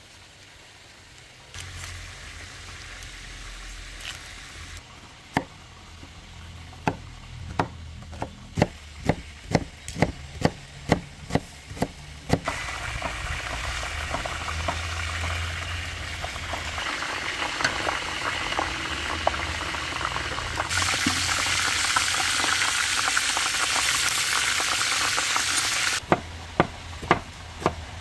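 Kitchen knife chopping onion on a wooden cutting board, a run of sharp taps that come faster and faster. Then chicken pieces frying in a large pot as they are stirred with a ladle, a steady sizzle that grows louder for several seconds. A few chopping taps return near the end.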